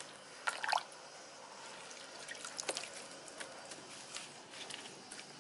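Soaked, chopped coconut husk being spread by hand over a plastic sieve: wet rustling and small irregular clicks, with water dripping. A louder cluster of clicks comes about half a second in.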